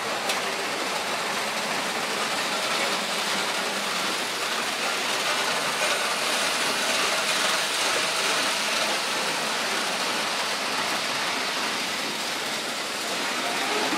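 Märklin H0 model train running steadily along the metal M-track.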